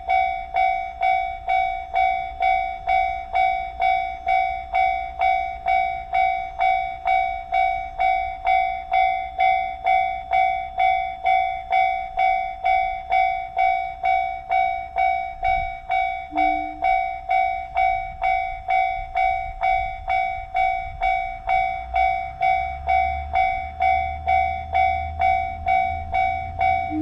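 Japanese railroad level-crossing warning bell ringing its 'kan-kan' at about two strokes a second, one steady ringing pitch repeated evenly. A low rumble underneath grows louder in the last few seconds.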